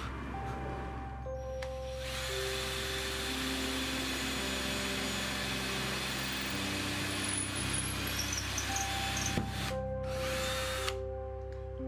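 Cordless drill boring through a plywood template into a wooden drawer front. It runs steadily for several seconds, pauses briefly, then runs again for a second near the end. Soft background music plays under it.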